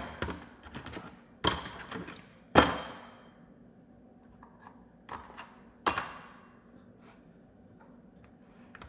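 Small metal tools and screwdriver bits clinking and clattering as they are rummaged through, about five separate sharp metallic knocks with a brief ring, the loudest about two and a half seconds in.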